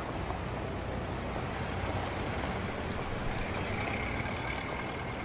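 Street traffic noise: a steady rumble of motor vehicles, with a faint high tone coming in during about the last second.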